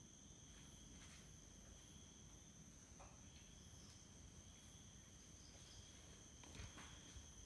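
Near silence, with faint, steady chirring of insects and a few faint knocks.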